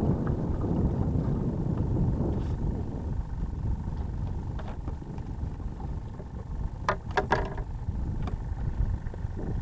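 Wind buffeting the microphone, an uneven low rumble, over open sea. About seven seconds in there is a brief cluster of sharp clicks.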